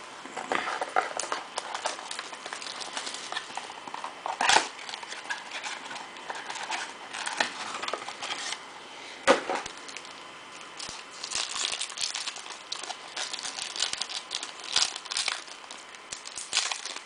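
Crinkling and tearing of a foil trading-card pack wrapper being opened by hand, with scattered clicks and taps from handling the pack. Two sharp snaps stand out, about four and a half and nine seconds in, and the crinkling grows denser over the last several seconds.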